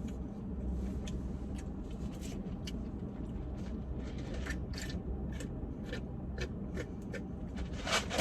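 Soft clicks and rustles of food and packaging being handled over a steady low hum. Near the end come several loud rattling shakes.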